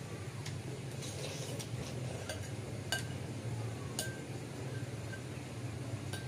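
Metal spoons clinking sharply against ceramic soup bowls a few times, the loudest about three and four seconds in, while noodles are slurped and eaten.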